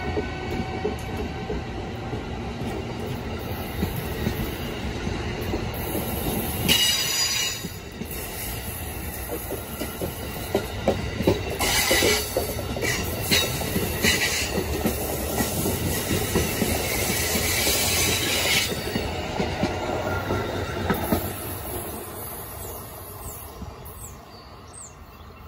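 Amtrak Northeast Regional Amfleet coaches passing close by: steel wheels clattering over the rails under a steady rush, with high-pitched squealing that comes and goes in the middle. The noise fades away over the last few seconds as the train recedes.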